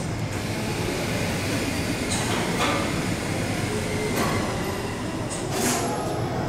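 Steady low railway rumble, with four short hissing sounds spread through it.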